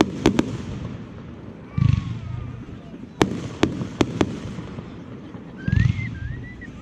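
Fireworks display: shells bursting with two deep booms and a series of sharp cracks, several in quick pairs.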